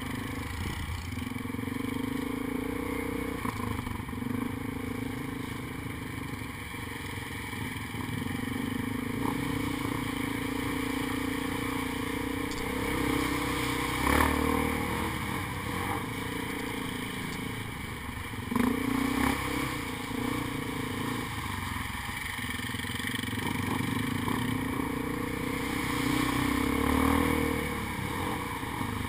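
ATV engine running under the rider as it climbs and crosses a rutted dirt trail, the engine note rising and falling with the throttle. A few clattering jolts from the machine over bumps, the loudest about halfway through and again a few seconds later.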